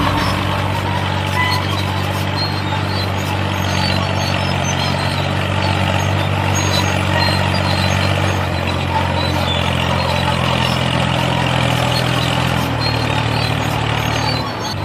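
A small tractor engine sound, as from an RC model tractor, runs steadily with a low hum. Its pitch shifts slightly a couple of times.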